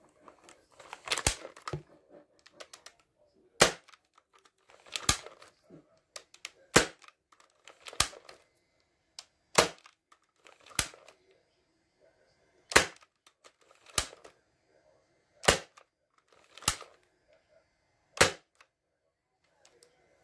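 Spring-upgraded X-Shot Reflex 6 foam dart blaster being primed and fired over and over, giving about a dozen sharp snaps and clacks at roughly one every one to two seconds.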